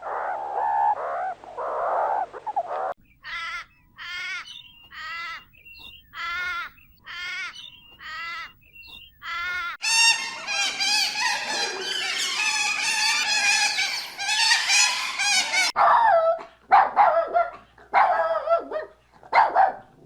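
Animal cries: a run of about eight evenly spaced high-pitched calls, then many overlapping calls together for several seconds, then a few more near the end.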